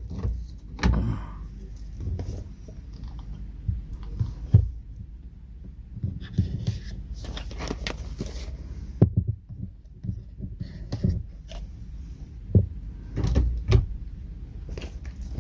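A box and its packaging being opened and handled: irregular knocks, clicks and short rustles.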